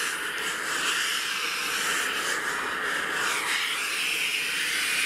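Bosch steam-station iron giving off a steady, continuous jet of steam as it is held over a knitted openwork piece to steam it; the hissing stops right at the end.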